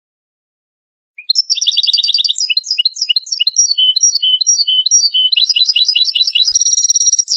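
European goldfinch singing: starting about a second in, a fast twittering song of rapid trills, short chirps and buzzy notes, ending with a falling note.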